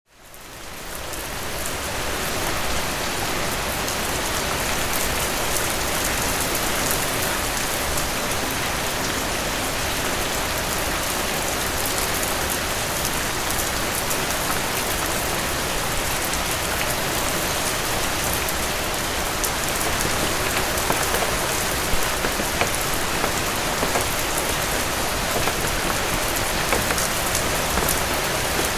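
Heavy rain falling steadily: a dense hiss with scattered sharper drop hits. It fades in over the first couple of seconds.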